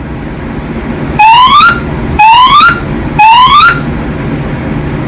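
Fire alarm evacuation speakers sounding three rising whoop tones, each about half a second long and a second apart, in the temporal-three evacuation pattern, over a steady low hum.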